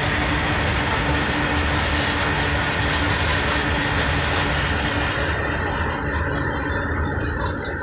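Indian Railways freight train of open-top wagons rolling past: a steady rumble of steel wheels on rail. It turns duller and a little quieter about five seconds in.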